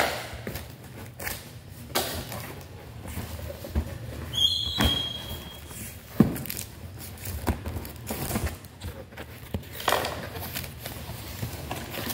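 A cardboard shipping box being opened by hand: packing tape pulled off the flaps, with a brief high squeak a little over four seconds in, amid irregular cardboard rustles, scrapes and knocks. A faint low hum runs underneath.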